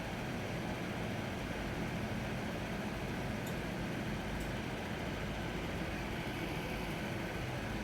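Steady low background rumble and hiss with no clear events, like distant engine or traffic noise, and a couple of faint high ticks midway.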